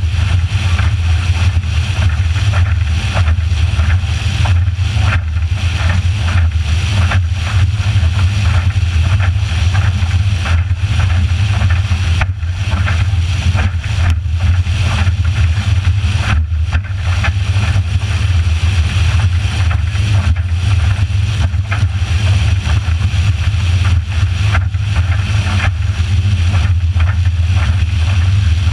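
Motorboat underway: a steady low drone with rushing wind and water noise over it.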